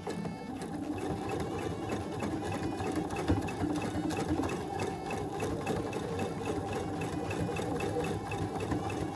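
Sewing machine stitching steadily at an even speed, sewing a straight stitch through folded fabric.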